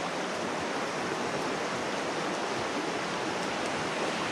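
Creek water flowing steadily, an even rushing sound.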